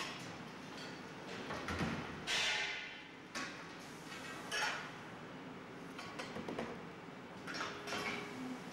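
Factory-floor noise of an exhaust-system production line: irregular metallic clanks and clatters as sheet-metal muffler shells and exhaust pipes are handled, over a steady background noise.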